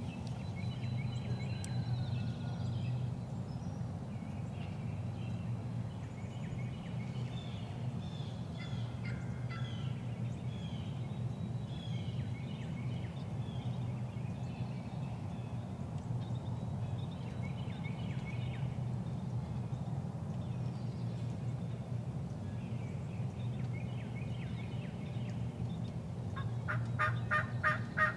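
Eastern wild turkeys calling, with scattered songbird chirps over a steady low rumble. Near the end a loud run of evenly spaced turkey notes, about four a second, begins.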